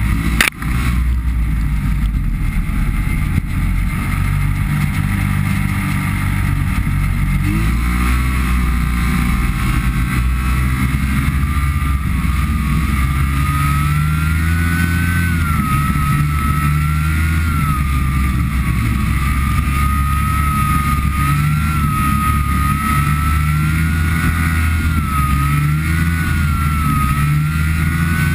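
Arctic Cat snowmobile engine running under way, with a few knocks right at the start. About seven seconds in the engine note climbs as the sled speeds up, and from then on its whine rises and falls with the throttle.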